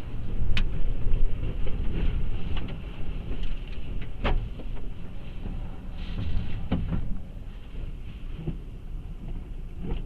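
Hurricane-force wind buffeting a truck, heard from inside the cab: a heavy, shifting rumble with sharp knocks of flying debris striking the truck, the loudest about four seconds in.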